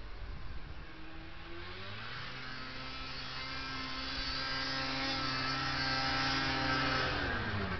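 Snowmobile engine at speed, growing louder as it approaches. Its pitch climbs about a second in, holds steady, then drops near the end as the machine passes by.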